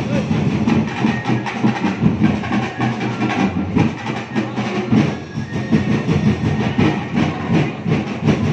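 Festival street-dance percussion ensemble playing live, a dense, fast-driving rhythm of drums and other percussion.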